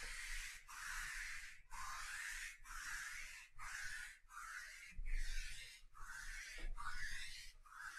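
Sticky lint roller rolled back and forth over a cloth table mat: a rasping stroke repeating about once a second.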